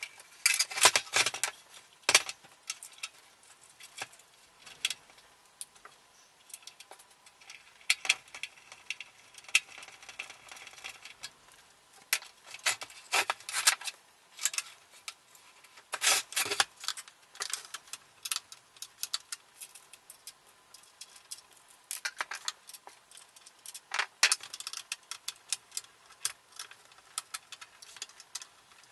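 Plastic housing of a Mr. Heater Buddy propane heater being handled and reassembled by hand: irregular clicks, knocks and rattles in short clusters with quiet gaps between.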